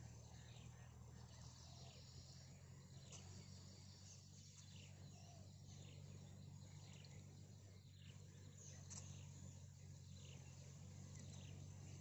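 Faint natural ambience: scattered short, high chirps, insect- or bird-like, over a steady low hum.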